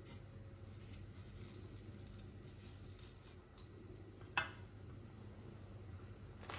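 Faint scraping of a kitchen knife tip cutting the cores out of apple slices, with one sharp click about four seconds in as the blade taps the hard cutting board, over a low room hum.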